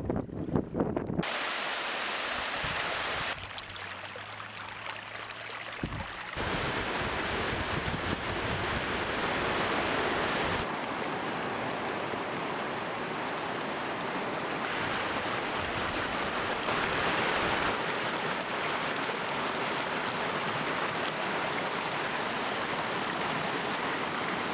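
Rushing water of a wadi in flood, a steady loud rush that changes abruptly several times as one clip cuts to the next. In the first second, wind buffets the microphone.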